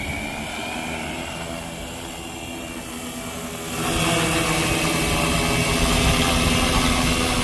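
Quadcopter drone's electric motors and propellers spinning after arming, a steady hum of several tones; about four seconds in they spin up louder as the drone lifts off and climbs on its own.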